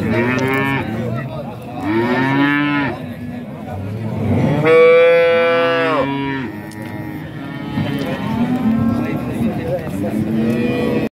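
Cattle mooing: a series of drawn-out moos, the loudest and longest about halfway through, with fainter ones after it.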